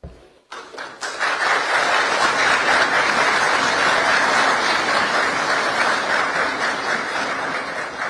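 Applause from a crowd, starting about half a second in, swelling within a second, holding steady and fading away at the end.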